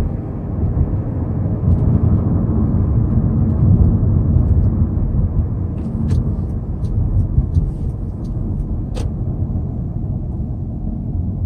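Hyundai Sonata Brilliant's engine running with road noise while driving, heard from inside the cabin as a steady low hum. A few light clicks come about halfway through.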